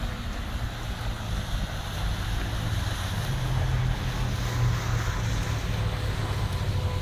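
Wind buffeting the microphone with a fluctuating low rumble over a steady outdoor hiss.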